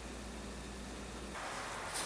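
Steady hiss of room tone with a low hum that stops about a second and a half in, and a faint brief rustle near the end.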